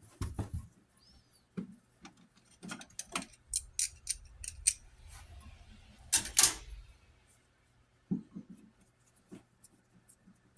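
Hand-tool work on a wall outlet: irregular small clicks, taps and scrapes of a screwdriver and fingers on the receptacle and its cover plate, in several short clusters, the loudest about six seconds in.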